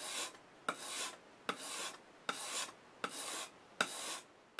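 A2 steel plane blade honed on a Norton medium India oilstone at about 30 degrees. Regular rasping strokes come a little more than one a second, each starting with a sharp tick as the blade meets the stone.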